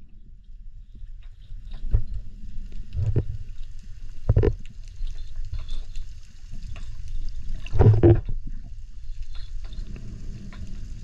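Underwater water noise: a low, steady rumble of moving water with a faint hiss above it, broken by a few dull knocks, the loudest about eight seconds in.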